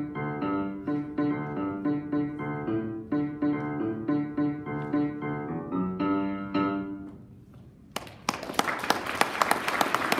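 Grand piano played in a steady rhythm of struck notes and chords, ending on a final chord that rings and dies away about seven seconds in. Applause breaks out about a second later, dense clapping that runs on.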